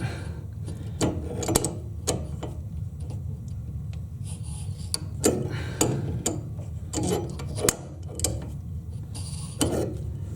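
Adjustable wrench clicking and scraping on a toilet water-supply nut as it is worked loose, a dozen or so irregular sharp ticks and taps over a steady low hum.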